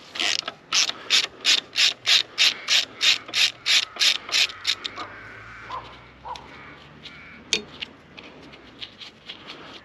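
Socket ratchet clicking at about three clicks a second as it is worked back and forth to run out a bolt on the engine block. It stops after about four and a half seconds, followed by a few light ticks and one sharp click.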